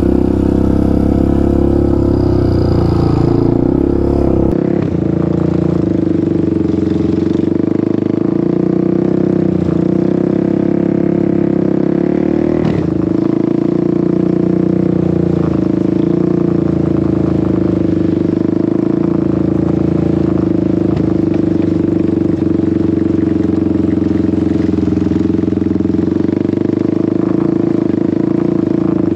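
ATV engine running steadily at an even pace under way on a trail, with a few knocks and rattles along the way.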